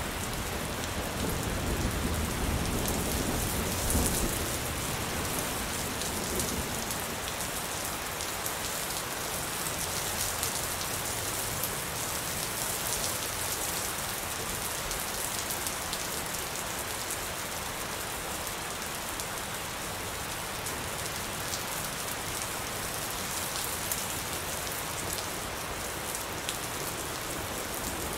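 Steady rain falling as an even, dense hiss and patter. A low thunder rumble dies away over the first few seconds.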